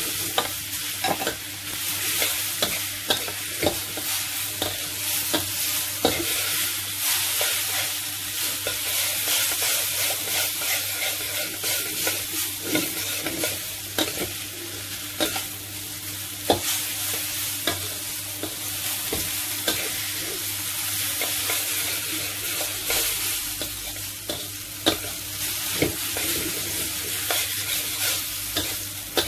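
Rice vermicelli sizzling in a hot steel wok while a metal spatula scrapes and clacks against the wok at irregular intervals as the noodles are stir-fried.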